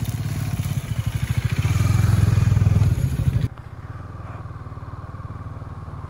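KTM Duke 250's single-cylinder engine running as the bike rides along, growing louder for about three seconds. The sound then drops abruptly, about halfway through, to a quieter steady engine note.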